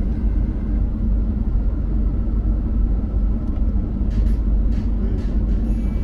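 Steady low rumble of road and engine noise inside a moving vehicle's cabin, with a few faint clicks in the last two seconds.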